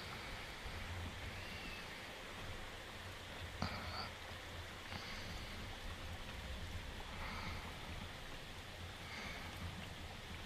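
Steady rain falling, with a sleeping cartoon dog's faint snores recurring every couple of seconds and a single sharp tap about a third of the way in.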